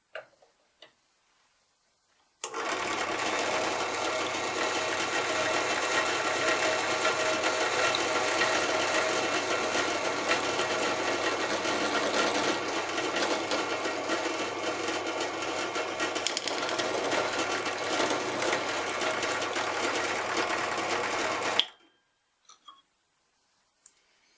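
Electric drill running steadily while drilling a small pilot hole, for a 3 mm tapped thread, into an aluminium heatsink. It starts suddenly about two seconds in and stops a few seconds before the end.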